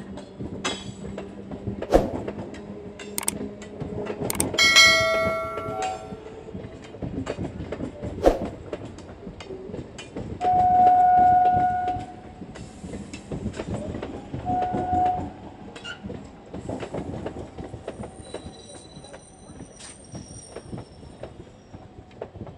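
Nine-coach ICF-built electric multiple unit (EMU) local train passing, its wheels clicking over rail joints under a steady rumble. A train horn sounds several times, the longest and loudest blast about halfway through.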